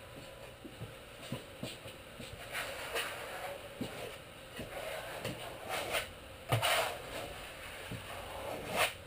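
Putty knives and a trowel scraping and spreading glue across a plywood panel, in irregular strokes with light knocks of the tools against the wood.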